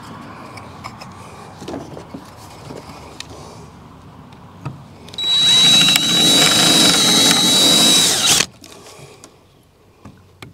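Cordless drill boring a pilot hole into a wooden board. A few light handling clicks come first. About five seconds in, the drill runs for about three seconds with a steady high whine, then stops abruptly.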